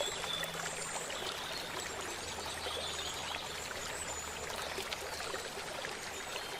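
River water flowing in a steady rushing hiss.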